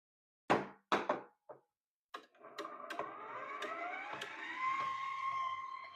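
A few sharp knocks, then a KitchenAid stand mixer's electric motor switched on, driving the meat grinder attachment: a whine that rises in pitch as it speeds up and then holds steady, with a few clicks as it starts.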